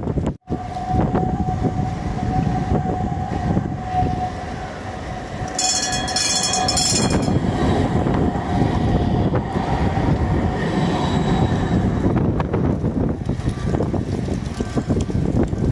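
Tram running on its rails, a continuous rumble with a steady whine for the first half and a brief shrill high-pitched sound about six seconds in.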